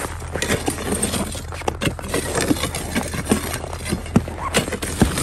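Iron pry bars knocking and grinding against river ice as a sawn block is levered loose: irregular clunks and sharp clinks, several a second, over a steady low hum.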